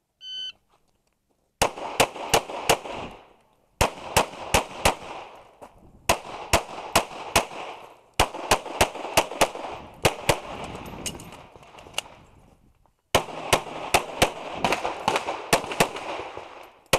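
Shot timer gives one short start beep, then a 9mm Walther Q5 Match pistol fires in rapid strings of several shots a second. The strings are separated by pauses of about a second as the shooter moves between positions, and each shot leaves a short echo.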